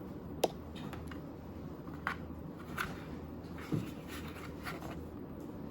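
Quiet room with a low steady hum and a handful of light, sharp clicks and taps at irregular intervals.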